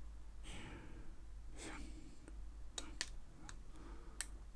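Several sharp clicks, about three to four seconds in, as the reset button of an outdoor Wi-Fi smart plug is pressed and held. Soft breath-like sounds come before them.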